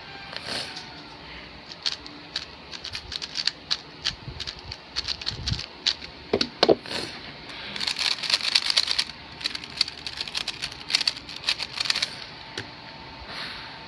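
A 3x3 speedcube being turned very fast by hand: a dense, irregular run of plastic clicking and clacking from the layers snapping round, starting about two seconds in and stopping about a second before the end, busiest in the second half. Short brushing sounds come near the start and near the end.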